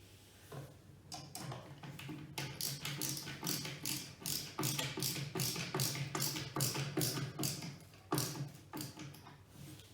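Screwdriver driving screws into a drawer part: a rapid run of sharp clicks, about four a second, that starts about a second in and stops near the end.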